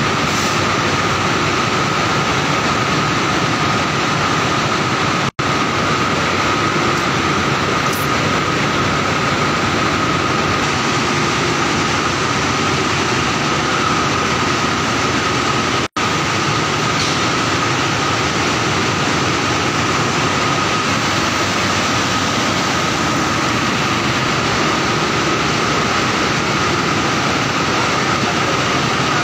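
LMW finisher draw frame running: a loud, steady mechanical noise with a constant high whine through it, cut off for an instant twice.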